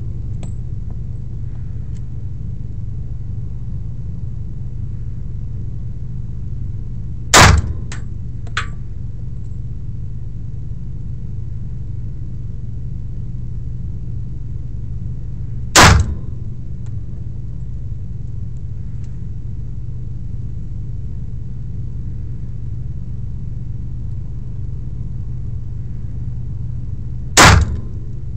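Three single shots from a semi-automatic pistol, fired several seconds apart: about seven seconds in, about sixteen seconds in, and near the end. A couple of faint clicks follow the first shot, all over a steady low rumble.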